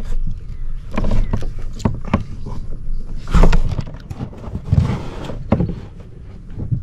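Irregular hollow knocks and thumps on a plastic kayak hull as someone shifts and handles gear in it, the loudest about three and a half and five seconds in.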